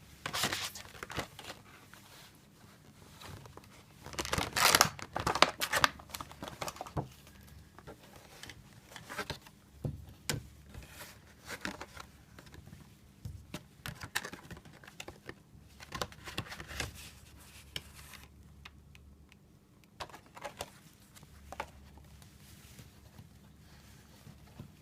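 Plastic packaging or wrapping crinkling and rustling as it is handled, with scattered clicks and taps; the busiest, loudest handling comes about four to seven seconds in.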